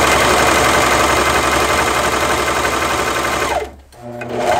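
Brother Airflow 3000 serger sewing and trimming a fabric scrap at speed, its motor and mechanism running with a steady whine. About three and a half seconds in it winds down and stops briefly, then starts again and speeds back up.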